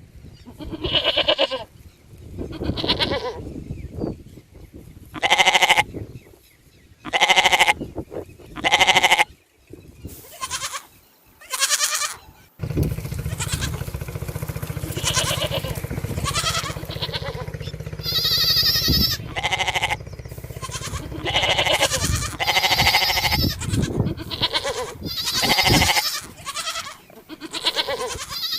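Sheep bleating over and over, a string of separate calls each lasting about half a second to a second. From about halfway in, a steady low rumble runs under the bleats.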